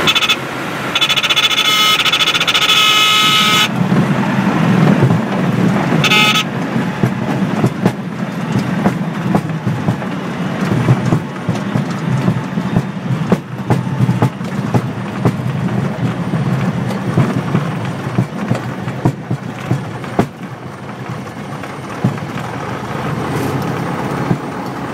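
Inside the cabin of a Beagle Pup 150 at landing: a steady, high stall-warning tone sounds for the first few seconds and again briefly about six seconds in. After that come the rumble of the idling Lycoming O-320 engine and of the wheels rolling over bumpy grass, with many small knocks and rattles.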